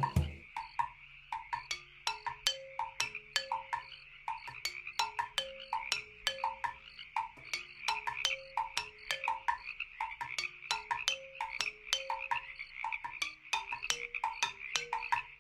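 A chorus of frog calls: quick clicks and short croaking notes, several a second, over a steady high-pitched buzz like insects.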